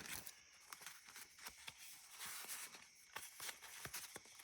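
Faint rustling and light ticks of magazine paper pages being handled, with a brief swell of rustle a little past the middle.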